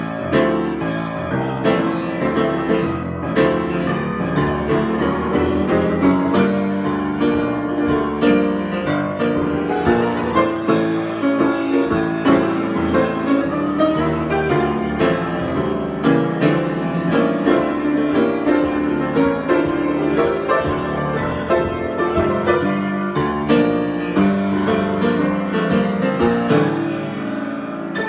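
Solo piano improvisation, a continuous flow of many notes with chords underneath; it eases off a little near the end.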